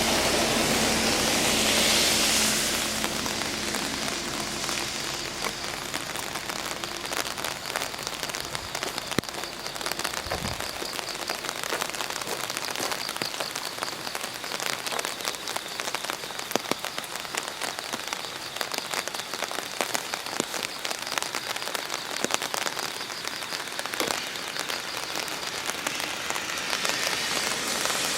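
Steady rain falling, with many small drop hits.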